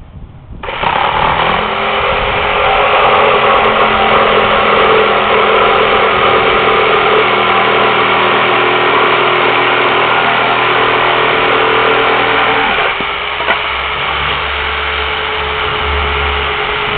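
Electric jigsaw starting up and cutting through a metal plate, a loud steady motor whine with the blade chattering. About 13 seconds in the sound changes pitch and drops slightly as the cut goes on.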